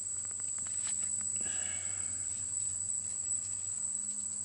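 Steady, continuous high-pitched insect chorus, with a few light clicks and rustles in the first second and a half.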